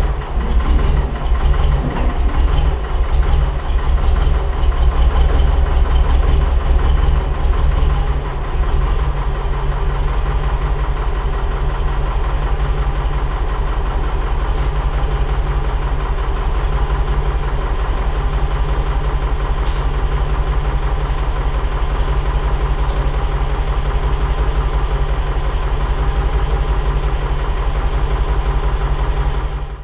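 Diesel engine of a compact wheel loader running while its loader arm and bucket are worked. The note is uneven for the first several seconds, then settles to a steady run.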